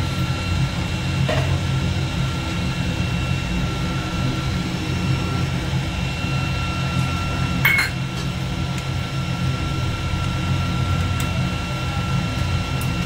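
Steady low hum of an electric motor with a thin, even high whine over it. There is one sharp click about eight seconds in.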